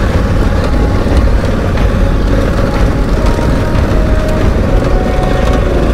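Onboard riding sound of a Honda Africa Twin CRF1100's parallel-twin engine running steadily, under heavy wind rumble on the microphone.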